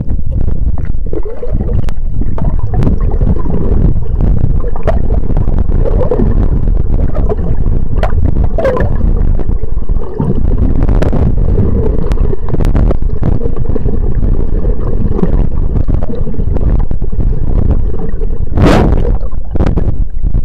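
Shallow sea water heard through a submerged camera: a steady, muffled low rumble of moving water with scattered clicks and gurgles, and a louder burst near the end.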